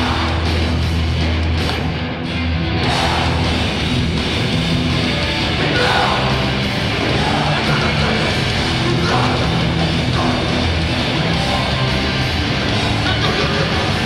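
Hardcore punk band playing live and loud: distorted guitars, bass and drums with shouted vocals. The band drops out briefly about two seconds in, then comes back in at full volume.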